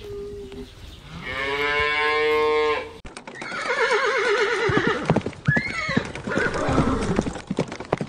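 A cow moos once, a long call in the middle of the first three seconds. After a cut, a horse whinnies with a quavering, wobbling call, amid scattered sharp knocks.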